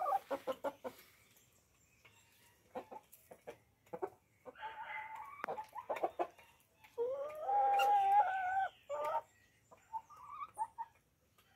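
Light Brahma chickens clucking: a quick run of clucks at the start, then a few short scattered sounds, then two drawn-out calls. The second call is the loudest and lasts nearly two seconds.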